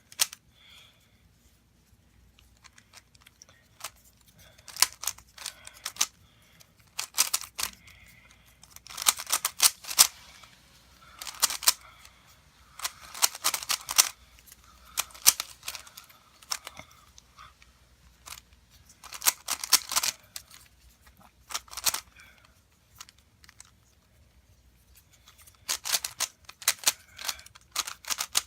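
Plastic clicking and clacking of a Z cube carbon-fibre-sticker 3x3 Rubik's cube being turned rapidly while it is solved. The turns come in quick bursts of clicks, separated by short pauses.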